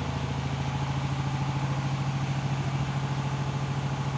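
An engine running steadily at idle: a low drone with a fast, even pulse.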